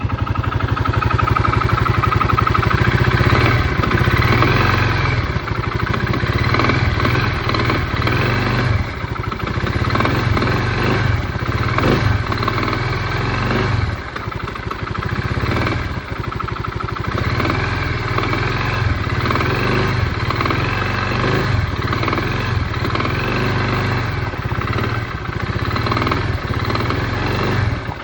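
Arctic Cat 300 DVX (Kymco Maxxer 300) quad's engine running with a rattle, blipped up and down again and again, each rev about a second long.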